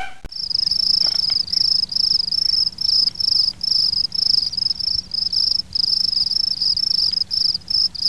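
Cricket chirping: a high, steady-pitched trill repeated in even chirps, about three a second.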